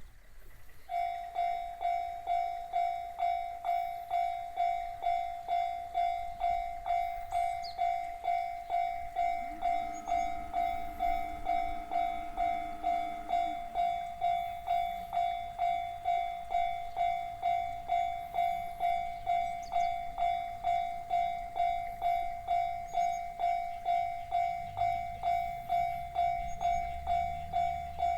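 Japanese railway level-crossing alarm in the JR standard tone, starting about a second in and ringing as an even, repeated electronic ding, about two a second. A lower steady tone sounds for about four seconds midway, and near the end the low rumble of an approaching electric train rises under the dinging.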